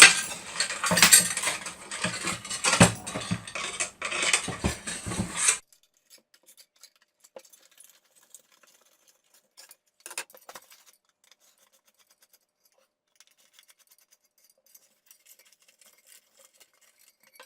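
Clattering, scraping and hard clinking as a wooden bird table is pulled apart by hand. It cuts off abruptly about five and a half seconds in, leaving only faint scattered taps.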